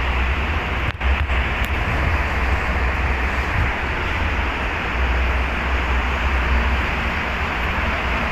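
Steady rushing noise with an uneven low rumble that swells and fades, like wind buffeting the microphone. There is a brief click about a second in.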